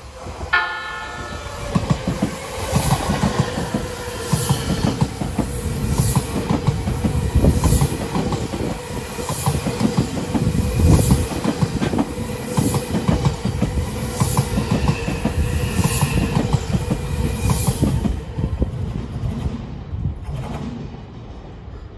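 An Odakyu commuter train sounds one short horn blast, then passes close by with loud rumbling and a rhythmic clickety-clack of its wheels over the rail joints. The passing sound fades away after about eighteen seconds.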